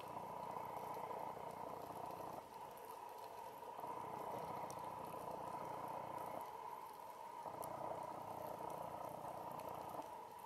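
Underwater ambient noise on a coral reef, heard through a diver's camera housing: a steady hiss that swells and eases every few seconds, with a few faint sharp clicks.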